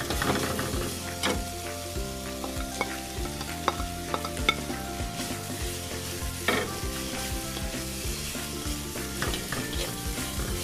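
Stir-frying in a metal wok: a spatula scrapes and knocks against the pan while chopped vegetables and shredded beef sizzle. A few sharper knocks come in the middle.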